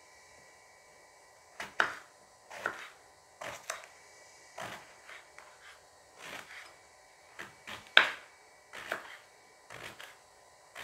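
Kitchen knife cutting green eggplant into chunks on a wooden cutting board: irregular knocks of the blade against the board, the loudest about eight seconds in.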